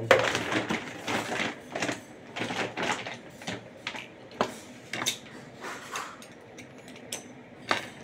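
An irregular string of light metallic clicks and clinks from hand tools and small parts being handled during washing machine repair work, with the loudest knock right at the start.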